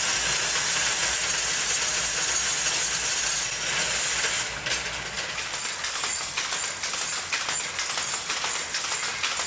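A pirn winder whirring steadily as it winds yarn onto pirns; about halfway through this gives way to the rapid, rattling clatter of an 80-year-old single-width Hattersley loom driven by foot treadles while weaving.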